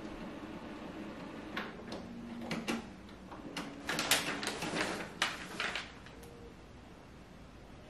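Canon Pixma iX6820 inkjet printer running its power-on initialization cycle: a steady motor hum, then a quick run of mechanical clicks and clacks from inside, settling quieter about six seconds in.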